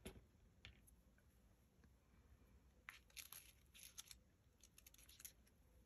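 Faint rustling and tearing of a small piece of thin craft material pulled apart by hand: a few soft crackles in the second half, otherwise near silence.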